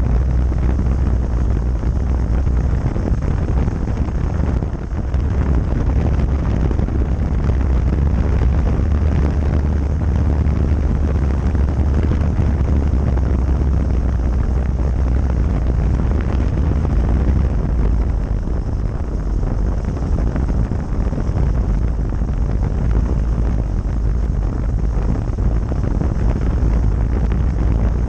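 Motorcycle riding at speed: heavy, steady wind rumble buffeting a camera microphone mounted low by the front wheel, with the bike's road and engine noise under it.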